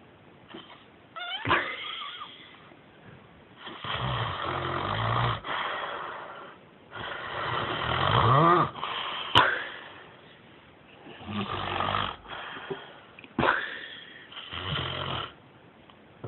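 A man snoring loudly and irregularly: four long, rattling snores, one rising in pitch near the middle, broken by sudden sharp snorts and quiet pauses. The uploader labels it sleep apnea.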